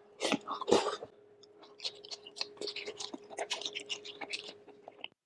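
Close-miked chewing and lip-smacking of soft beef shank from bulalo: a run of small wet mouth clicks, loudest about a second in, over a steady faint hum.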